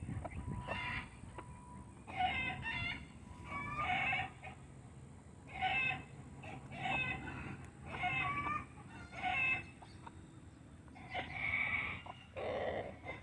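Backyard chickens calling over and over, a short pitched squawk or cluck about every second or two.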